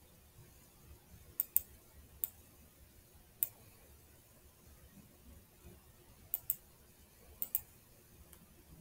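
Computer mouse button clicking, about eight sharp clicks spread unevenly, several coming in quick pairs, as anchor points are selected and dragged.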